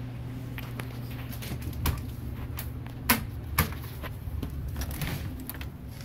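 A door being opened: a few sharp knocks and clicks, the loudest about three seconds in and again half a second later, over a steady low hum.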